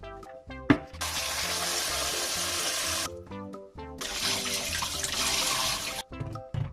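Water running in two spells of about two seconds each, a steady rushing hiss that starts and stops abruptly, over background music with a light melody. A single sharp click comes just before the first spell.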